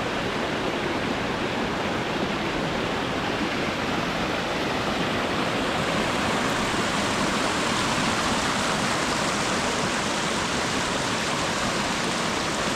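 Creek water rushing steadily, a loud even roar of flowing water.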